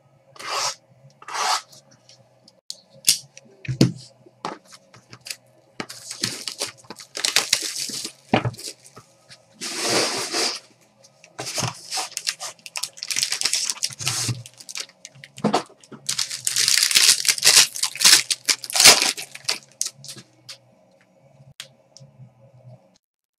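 Sealed trading-card boxes and packs being torn open: irregular bursts of tearing and crinkling wrapper and cardboard, coming thickest in the middle and later part. A faint steady hum runs underneath and stops near the end.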